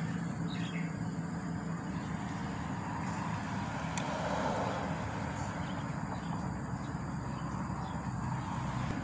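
Steady outdoor background noise with faint, short bird chirps every second or two and a brief swell in the noise about four seconds in.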